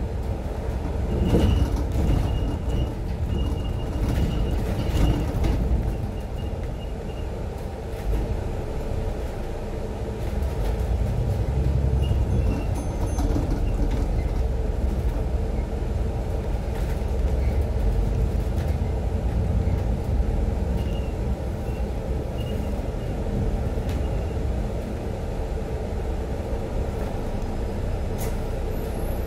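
Inside a double-decker bus on the move: steady engine and road rumble with rattles from the bodywork, and a high whine that comes and goes in the first few seconds. The bus is slowing to a halt at a stop near the end.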